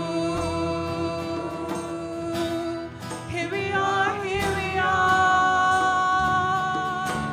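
Live worship music: a singer holding long notes over instrumental accompaniment.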